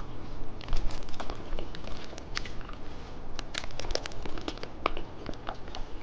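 Crinkling and crackling of candy and its wrapper handled close to the microphone: many sharp, irregular crackles.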